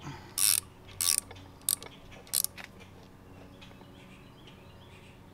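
A hand ratchet tool clicking in four short bursts as it tightens the oil drain plug back into a TorqStorm supercharger's aluminium housing, within the first two and a half seconds, over a faint steady hum.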